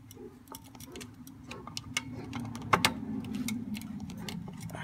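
Drum brake hold-down spring tool pressing and turning the spring cup onto its pin on the backing plate: a scatter of small metallic clicks and ticks, with one sharper click a little under three seconds in, as the cup is pushed down to catch. A steady low hum runs underneath.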